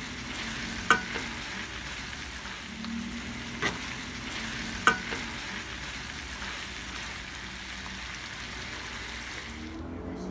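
Pork igado sizzling in a skillet as a metal spoon stirs it, with a few sharp clinks of the spoon against the pan, the loudest about five seconds in. The sizzle cuts off just before the end.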